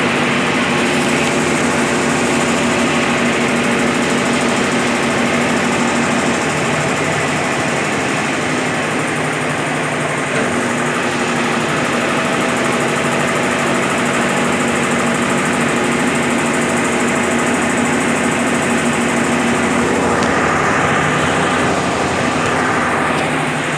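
Brastemp BWL11 11 kg washing machine spinning a load of rugs: a steady motor hum over the whir of the drum, unchanging throughout.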